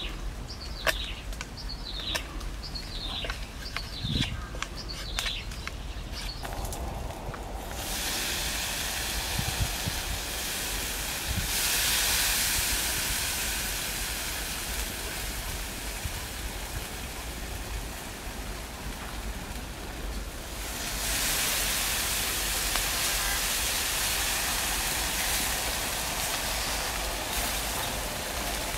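Pork sizzling on a wire grill over a wood fire: a steady hiss that starts about seven seconds in and swells twice, around twelve seconds and again from about twenty-one seconds as more meat goes on. Before the sizzling there is a run of falling chirps about once a second, with a few knocks.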